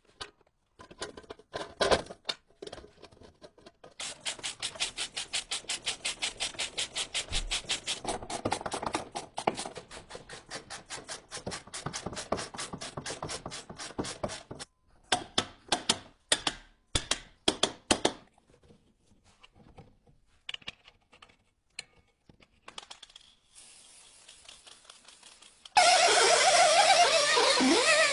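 Metallic clicking from hand tools working on a car's wheel hub, with an even run of about five sharp clicks a second, then scattered clicks and taps. Near the end an air-powered rotary tool starts up with a loud, steady high whine.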